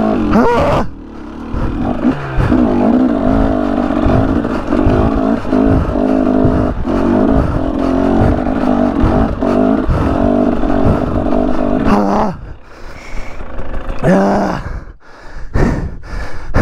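KTM 300 XC two-stroke dirt bike engine pulling hard at low revs in second gear up a steep climb, its pitch wavering; the rider says it was bogging low. The engine note drops away about twelve seconds in, and heavy breaths follow near the end.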